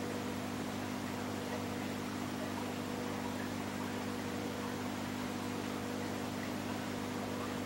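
A steady electrical hum with several fixed tones under a constant hiss, unchanging throughout.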